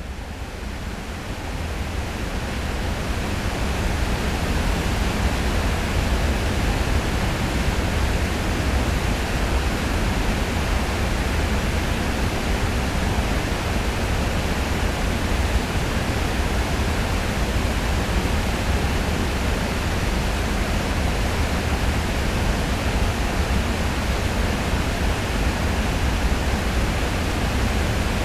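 Heavy flow of river water pouring over a weir: a loud, steady rush of falling water, deepest in the low range, swelling in over the first few seconds and then holding level.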